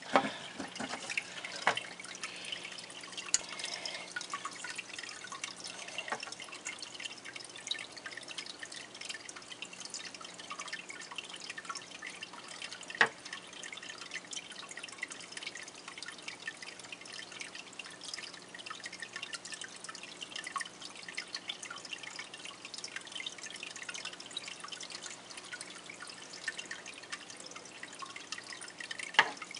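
Aquarium air bubbler running: a steady patter of bubbles breaking and water trickling at the surface of the tank, over a faint steady low hum, with a few sharper plinks and clicks.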